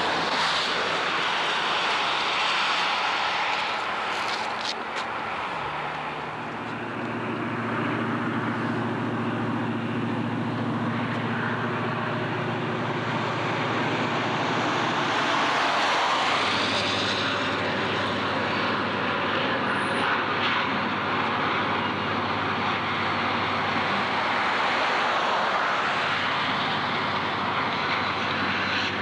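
Steady engine drone of a moving vehicle over a rushing noise, its pitch shifting about six seconds in and again about sixteen seconds in.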